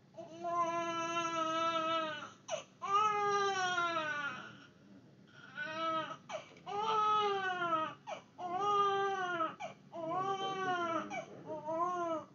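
Newborn baby crying: about seven drawn-out wails in a row, each a second or two long, rising briefly and then falling in pitch.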